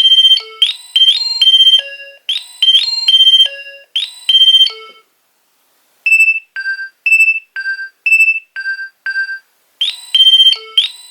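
Nokia 2300 mobile phone ringtones playing through the phone's speaker as electronic beeping melodies. One tune ends about five seconds in. After a short gap comes a brief tune of short beeps alternating between a higher and a lower pitch, and near the end another melody begins.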